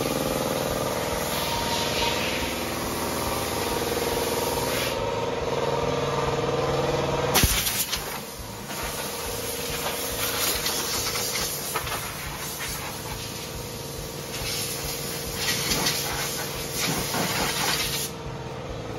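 Compressed air hissing from a handheld pneumatic tool on an air hose, worked over bare sheet metal, with an abrupt change in the sound about seven seconds in.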